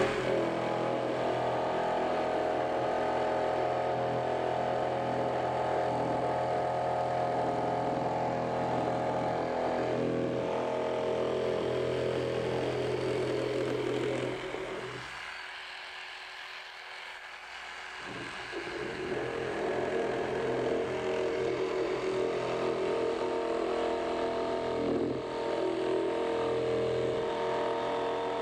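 Electric jigsaw running steadily as it cuts away excess wood. It eases off for a few seconds about halfway through, then runs again.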